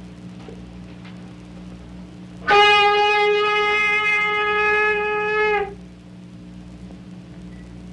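Saxophone sounding one long held note of about three seconds, starting about two and a half seconds in and stopping cleanly, over a steady low electrical hum.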